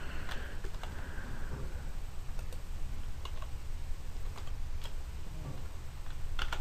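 Scattered computer keyboard and mouse clicks, about one or two a second, with a louder pair near the end, over a low steady background hum.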